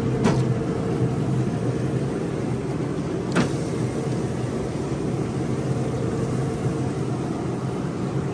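Steady hum of a RecTeq pellet grill's fan running, with two knocks as racks of spare ribs are set on the metal grate, the louder one about three and a half seconds in.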